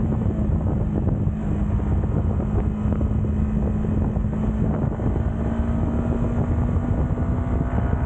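Yamaha MT motorcycle engine and exhaust running under steady throttle at cruising speed, its note held level, dipping slightly near the end.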